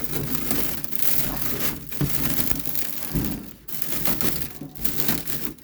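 A metal cooking pot banged repeatedly as a signal to a flock of flying pigeons, giving rough clattering knocks.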